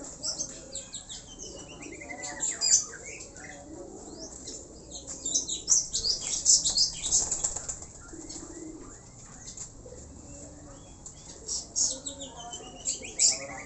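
Domestic pigeons flapping their wings in repeated bursts of take-off and flight, the flaps thickest in the middle. A bird chirps in a quick falling run of notes, once early on and again near the end.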